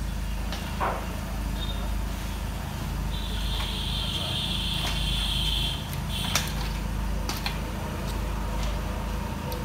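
Workshop noise while an engine hangs from a hydraulic engine crane: a steady low hum throughout, a few sharp metallic knocks, and a high, even hiss lasting about two and a half seconds midway.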